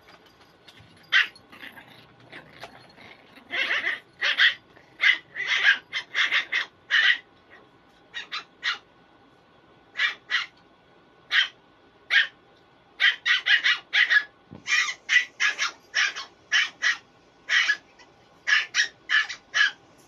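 Shih tzu puppies yipping and barking in short, high-pitched calls as they play-fight, first a few scattered yips and then quick runs of several in a row.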